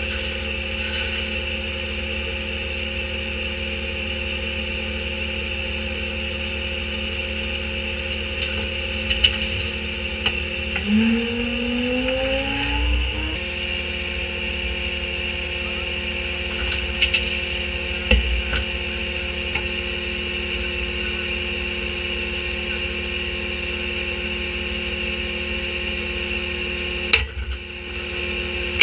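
Diesel engine of an Autocar garbage truck with a Leach rear-loader body running steadily, with its hydraulic packer system. About eleven seconds in, the engine speeds up with a rising whine for a couple of seconds as the packer blade cycles and sweeps the load out of the hopper, with a few knocks from the load.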